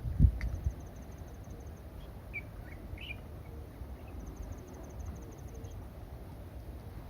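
Faint outdoor ambience: two short insect trills of rapid, evenly spaced high ticks, and a few bird chirps around the middle. A low rumble with a knock in the first second fades out early.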